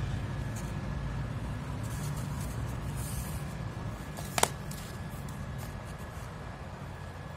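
A smartphone and a corrugated-cardboard stand handled on a tabletop, with a single sharp click about four and a half seconds in, over a steady low background hum and a faint high whine.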